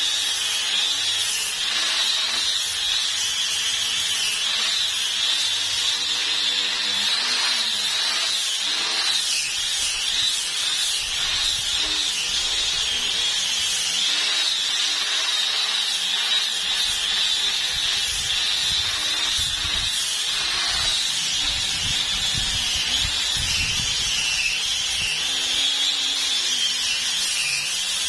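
Electric sander with a round sanding pad running steadily against a wooden plank, giving a continuous high whine that wavers slightly in pitch. It is sanding down patches of dried homemade wood filler.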